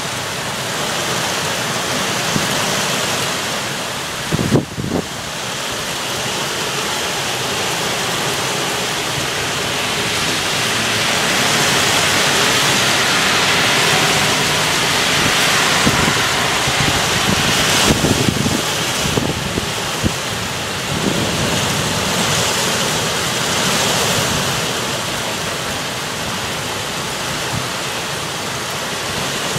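Heavy rain pouring down during a thunderstorm: a steady rush that swells and eases, with a few brief low thumps about four seconds in and again around eighteen seconds.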